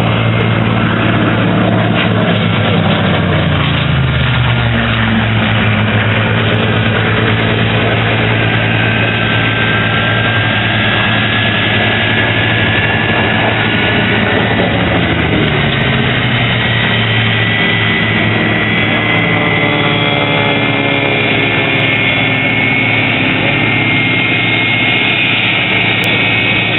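Loud, steady aircraft engine noise: the F-86 Sabre's turbojet whining as it idles on the taxiway, mixed with the drone of a propeller warbird flying past, its pitch falling as it goes by.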